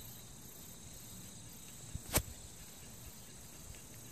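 Steady high-pitched insect chirring, with a sharp click a little over two seconds in and a fainter click just before it.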